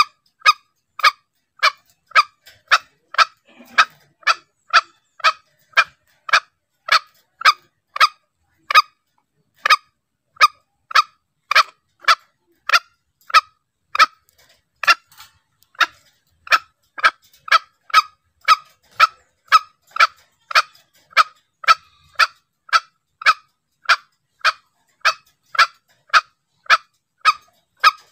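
Green junglefowl call used as a hunting lure: a short, sharp note repeated evenly about twice a second, with brief pauses about nine and fifteen seconds in.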